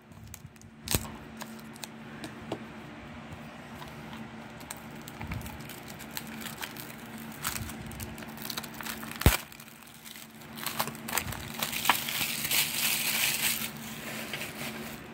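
Clear cellophane shrink wrap being picked at, torn and peeled off a plastic DVD case, crinkling and crackling, busiest and loudest in a stretch near the end. A few sharp clicks come in between, the loudest about nine seconds in.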